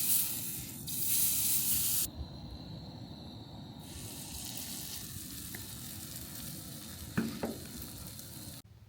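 Pancake batter sizzling in a hot frying pan, loud for about the first two seconds and then softer and steady, with a short knock about seven seconds in.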